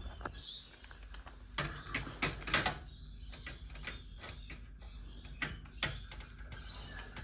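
Scattered light clicks and clacks of small screws and a screwdriver being handled while a TV's circuit board is taken apart. A few sharper knocks come in a cluster between about one and a half and three seconds in, and twice more near six seconds.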